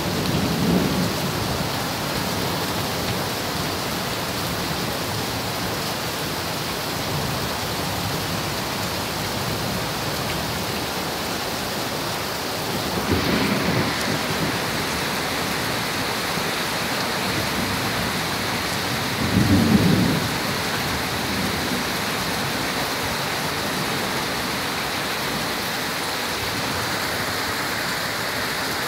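Steady rain falling, with thunder rumbling in three short swells: near the start, about halfway through and again about two-thirds of the way through.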